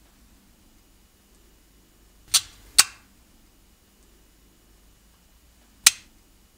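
Han-Modular connector modules snapping into a Han-Eco plastic module frame: sharp snap-fit clicks, two close together about two and a half seconds in and one more near the end, each one a module latching home.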